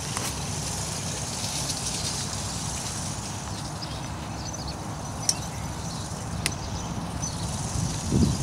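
Outdoor background noise: a steady low rumble with faint, scattered high chirps and two sharp clicks about a second apart, about halfway through.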